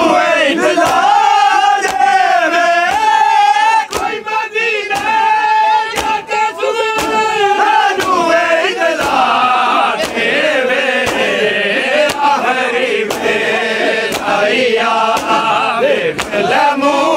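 A crowd of men chanting a mourning lament together, with repeated sharp slaps of hands striking bare chests in matam.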